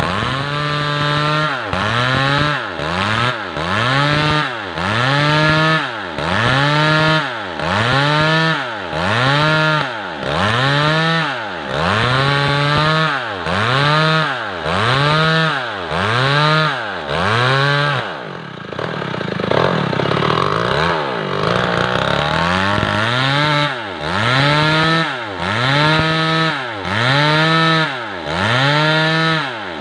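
Stihl MS 381 two-stroke chainsaw ripping lengthwise through a large weru log. The engine pitch rises and falls about once a second as it works through the cut, and holds steadier and less regular for a few seconds about two-thirds of the way through.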